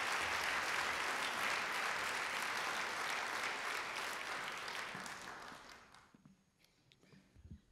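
Audience applauding, the clapping steady at first and then dying away about five to six seconds in.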